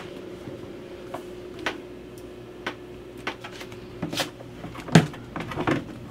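Scattered knocks and taps as a reinforced plastic hose and hands bump against wooden cabinetry and the edges of an open floor hatch, with the loudest thump about five seconds in. A steady faint hum runs underneath.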